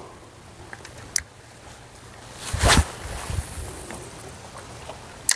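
A cast with a spinning rod: a whoosh about two and a half seconds in, then a hiss that fades over about a second, and a sharp click near the end, like a spinning reel's bail snapping shut.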